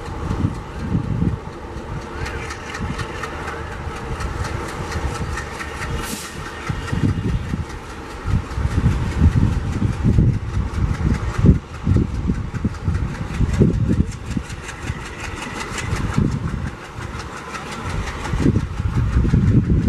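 ALCO WDM-3D diesel locomotive's 3300 hp engine chugging in uneven low pulses as it accelerates, louder from about halfway through.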